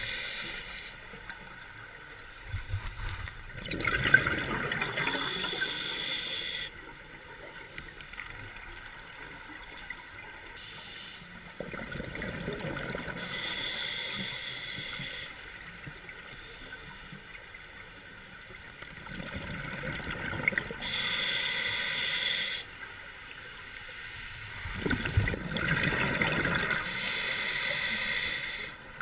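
A scuba diver breathing through a regulator underwater: a hissing breath drawn in and a bubbling, gurgling breath out. There are about four breath cycles, several seconds apart.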